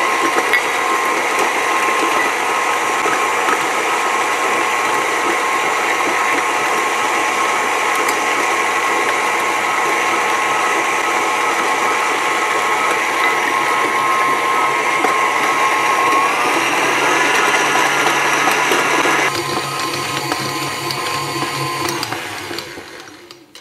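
KitchenAid stand mixer motor running steadily with a whine, its beater working cold butter, flour and water into shortcrust pastry dough. About two thirds through the whine rises in pitch, and near the end the motor winds down and stops.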